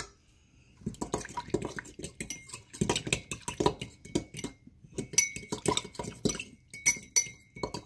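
Metal fork stirring and scraping a thick wet spice paste in a porcelain mug, starting about a second in. It goes in quick strokes, and in the second half the tines clink against the mug with a short ring.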